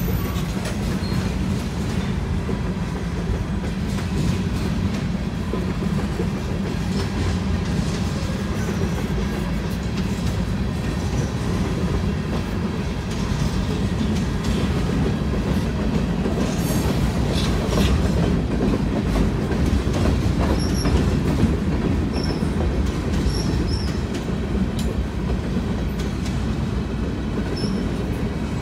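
Freight train cars (covered hoppers and boxcars) rolling past close by, with a steady wheel-on-rail rumble and clatter. A few short high squeaks come in about two-thirds of the way through.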